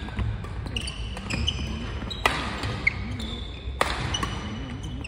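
Badminton rally: rackets striking a shuttlecock in a quick exchange of sharp hits, the two loudest about two and a quarter and almost four seconds in, with court shoes squeaking briefly on the floor between shots.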